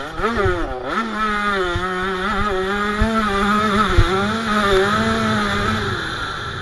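KTM 85 SX two-stroke single-cylinder engine at high revs. It rises and falls quickly in pitch for the first second, then holds high and fairly steady with small wobbles, and eases off near the end. Two dull knocks come in the middle.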